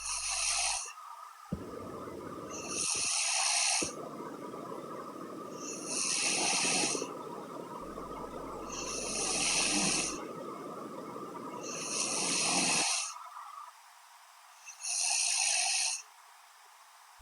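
A young woman snoring in her sleep: six slow, even snoring breaths about three seconds apart. A steady background hum stops about three-quarters of the way through.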